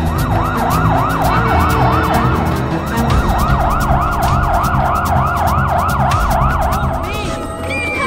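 Cartoon siren sounding from a medical emergency train: a fast yelp that sweeps up and down about five times a second, then stops about seven seconds in.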